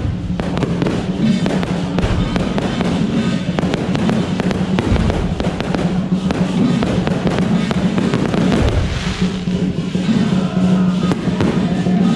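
Aerial fireworks shells bursting overhead in a string of sharp bangs and crackles, over continuous music.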